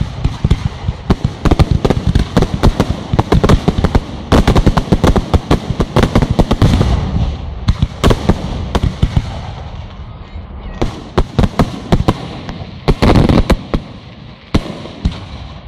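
Aerial fireworks going off in a rapid barrage of bangs and crackles, densest through the first seven seconds or so, then thinning to scattered clusters of bangs.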